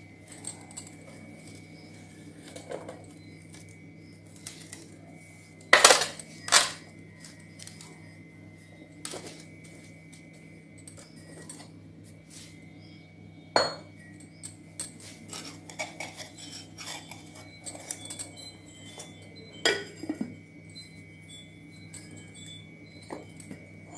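Steel pots, lids and ceramic dishes being handled and set down on a stone countertop: scattered clinks and knocks, the loudest a pair of clanks about six seconds in, with more near the middle and about twenty seconds in.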